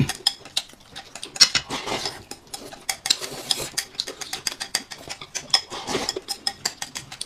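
Close-up eating sounds: crackly chewing of a crispy fried chicken cutlet, with quick clicks of chopsticks against a porcelain bowl and slurping as food is shovelled from the bowl.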